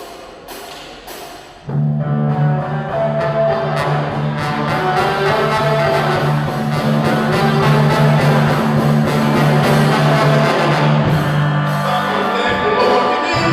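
Live band playing with electric guitar and drums. After a few quieter hits, the full band comes in loud about two seconds in over a long-held low note.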